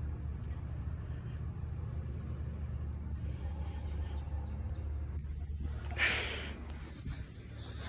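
Steady low hum of outdoor air-conditioner condensing units running, with a brief noisy rush about six seconds in.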